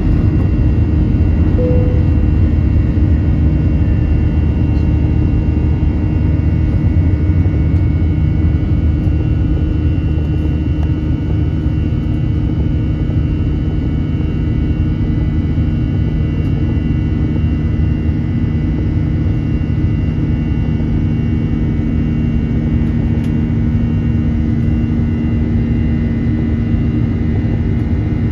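Airbus A321 cabin noise during the climb after takeoff: jet engines and airflow making a loud steady rumble with several steady whining tones above it.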